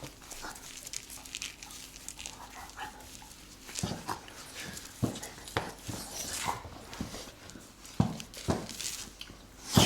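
A dog moving about before a walk, with scattered clicks and knocks and a sharper knock near the end.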